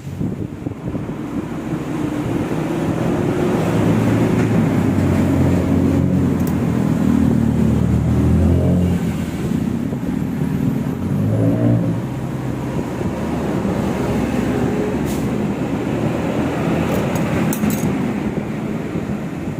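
Motorcycle engine running and being revved: its pitch climbs over several seconds, drops back about eight and a half seconds in, then rises briefly again near twelve seconds before settling to a steadier run. This is an engine that knocks when accelerated.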